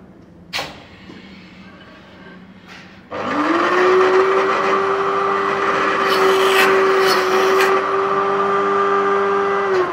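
Small electric cutter motor of a georgian-bar notching machine starting about three seconds in, spinning up quickly to a steady high whine. A few seconds later come several short harsh bursts as the cutter notches the bar, and the motor is switched off at the very end, its pitch starting to fall.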